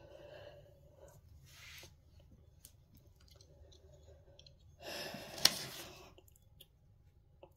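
Faint handling noises, then about five seconds in a sheet of paper rustling for about a second as it is picked up, with one sharp click in the middle.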